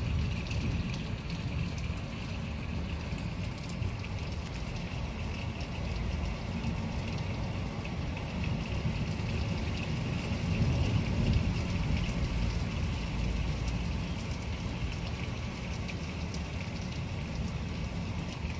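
Steady heavy rain during a thunderstorm, with a deep low rumble underneath that swells about ten seconds in.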